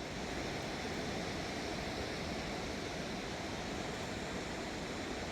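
Steady rush of a fast-flowing, rain-swollen river.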